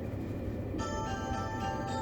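Train running rumble, then, about three-quarters of a second in, the JR West 271 series limited express's onboard chime starts: a melody of sustained ringing tones over the rumble, the signal for an upcoming automatic announcement.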